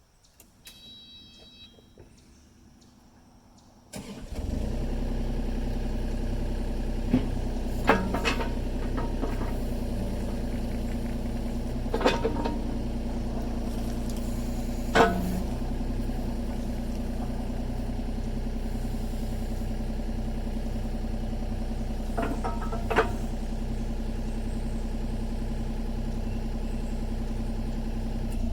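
Excavator diesel engine starting about four seconds in, after a short high beep, then running at a steady idle with a few sharp metallic knocks over it, and shutting off near the end.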